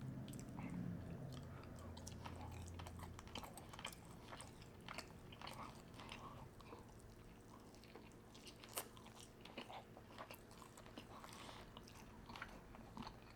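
Close-miked chewing of food, with many soft, scattered wet mouth clicks.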